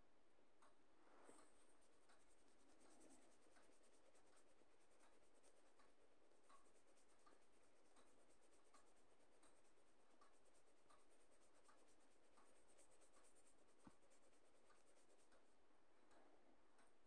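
Near silence: faint hiss with small, irregular ticks about one or two a second.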